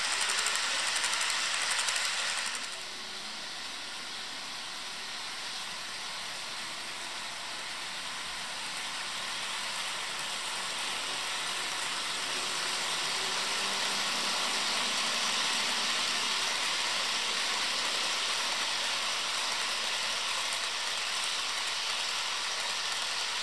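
HO-scale model trains rolling along the track, their wheels and running gear making a steady hissing rattle. It drops suddenly about three seconds in as one train gives way to a passenger train led by Amtrak P42 models, whose sound then grows slowly louder as it runs by.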